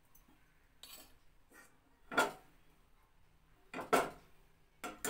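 Wire spider strainer knocking against a wok and a bowl while scooping boiled vegetables out of the cooking water: about five separate metal clinks, the loudest about two and four seconds in.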